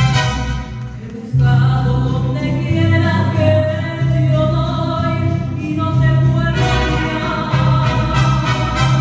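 Mariachi ensemble playing live, violins and guitars with singing. Rhythmic strumming at the start gives way after about a second to long held sung notes over a steady bass line, and the strumming comes back about two-thirds of the way through.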